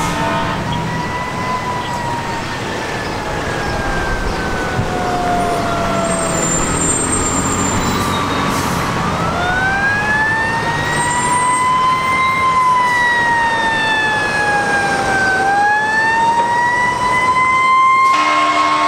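Fire engine siren sounding a slow wail, its pitch falling and rising over several seconds at a time, growing louder as the engine approaches. A steady blast from the truck's air horn starts near the end.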